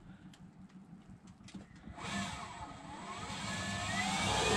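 The boat's 12 kW, 48-volt electric propulsion motor spins up under throttle about two seconds in. Its whine dips and then climbs steadily in pitch over a growing rushing hiss, getting louder as it goes.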